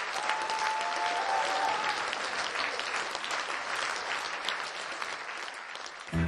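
Concert audience applauding, a dense, steady patter of clapping that slowly dies down; the band starts playing just at the very end.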